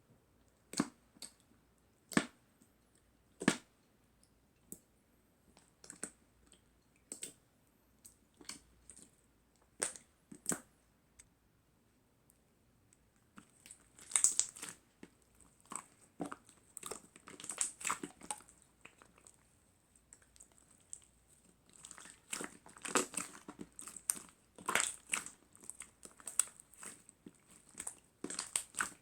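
Slime being pressed and worked by hand, making crisp clicking and crackling pops. Single pops come at intervals at first, then give way to dense runs of crackling about halfway through and again toward the end.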